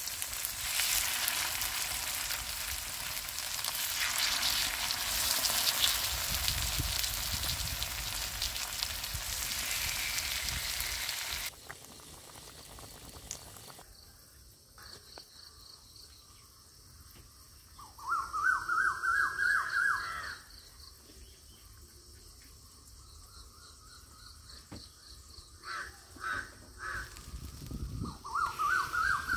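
Fish steaks sizzling as they fry in oil on a cast-iron pan, cutting off suddenly after about eleven seconds. Then it is quieter, and a bird calls twice in a quick run of rising notes, about halfway through and again near the end.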